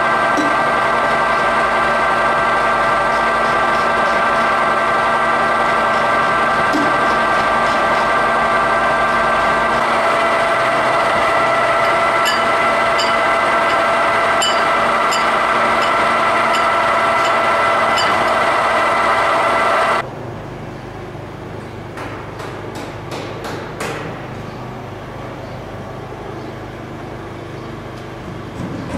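Clausing Colchester 25-inch geared-head engine lathe running, a steady machine hum with a whine of several tones. The whine changes pitch about a third of the way through. About two-thirds of the way in the running sound cuts off suddenly, leaving a quieter hum and a few scattered clicks.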